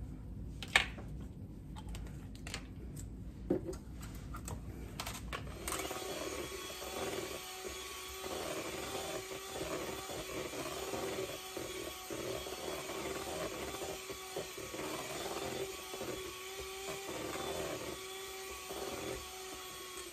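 A couple of sharp knocks, then an electric hand mixer starts about six seconds in and runs steadily, its beaters whirring through cake batter in a bowl. It stops just before the end.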